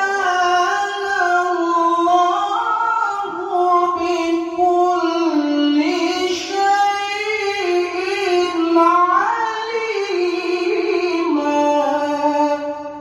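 A qari reciting the Quran in the melodic tilawah style: one long, high, ornamented phrase sung on a single breath. The voice winds up and down in pitch and fades off near the end.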